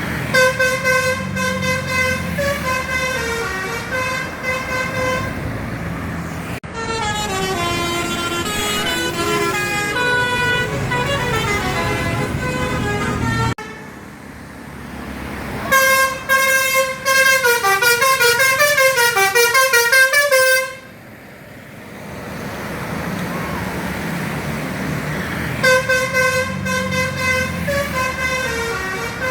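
Bus 'telolet' air horns: several horn trumpets sounding rapid sequences of notes that step up and down like a tune, in four separate bursts, over a low engine and road rumble.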